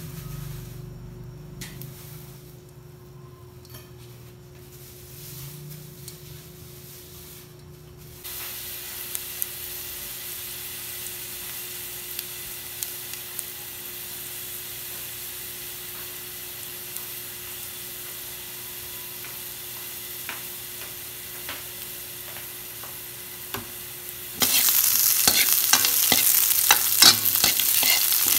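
Garlic slices frying in olive oil in a wok with a steady sizzle that starts about eight seconds in, after a faint opening while the wok heats. Near the end the sizzle gets much louder as onion and ginger go in, with a metal spatula scraping and clicking against the wok.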